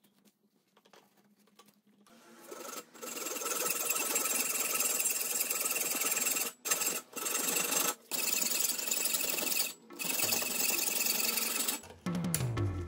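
Hacksaw cutting through the thin metal barrel of a soldering iron: fast back-and-forth sawing strokes starting about two seconds in, with a few short pauses. Background music comes in near the end.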